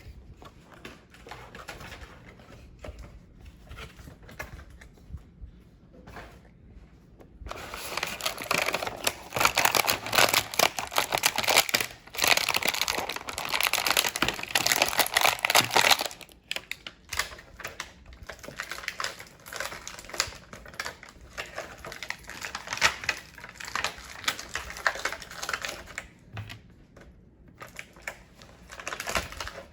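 A small toy box and its plastic packaging being torn open and crinkled, with many quick light clicks. It starts quietly, turns loud and busy a few seconds in, and settles back to scattered crinkles and clicks after about the halfway point.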